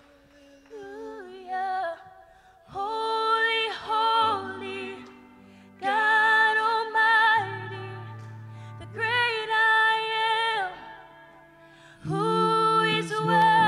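A woman singing slow, drawn-out worship phrases with vibrato, in several separate phrases with short pauses between them, over sustained keyboard chords.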